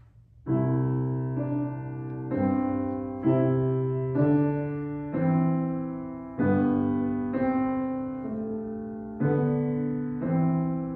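Grand piano playing a slow introduction. Chords start about half a second in and are struck about once a second, each ringing and fading before the next. The violin has not yet come in.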